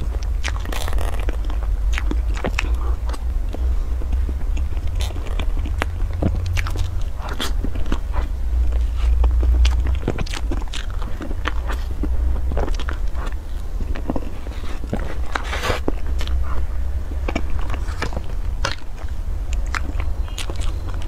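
Close-up mouth sounds of someone eating a chocolate-shaving-coated cream cake: biting and chewing, with crunching and many short wet clicks and smacks scattered throughout, over a steady low hum.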